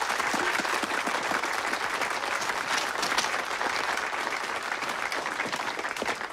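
A crowd applauding: many hands clapping at once in a dense, steady patter.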